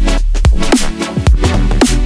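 Background electronic dance music in a drum-and-bass style, with a fast beat and deep bass.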